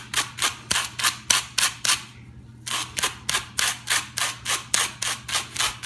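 Fine-wire dog brush raked repeatedly through a Roomba's roller brush to comb out dog hair: short scratchy strokes, about four or five a second, with a brief pause about two seconds in.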